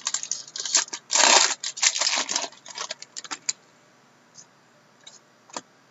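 Trading-card packs and cards being handled: a quick run of crinkles, rustles and clicks, loudest about a second in, thinning out to a few soft clicks after about three and a half seconds.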